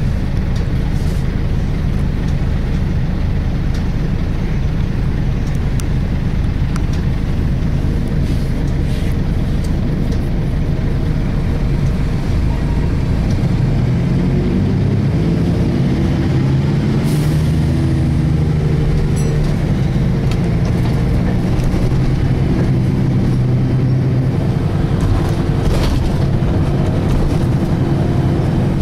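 Volvo B10BLE single-deck bus heard from inside while under way: a steady drivetrain drone with a whine of several tones that rises in pitch about halfway through as the bus speeds up, then holds steady. This is the unusual differential sound the uploader asks about on this bus with its three-speed Voith-like automatic gearbox.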